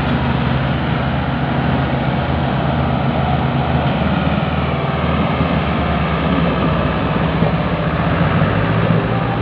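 Diesel tractor engines running hard under heavy load while pulling a heavily loaded sugarcane trolley. More than one engine gives a steady, deep drone.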